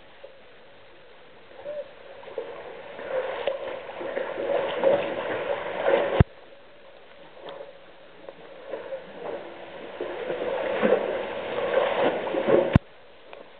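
Water splashing and sloshing close to the microphone from one-handed swimming strokes, in irregular surges. It cuts off abruptly with a click twice, about six seconds in and near the end.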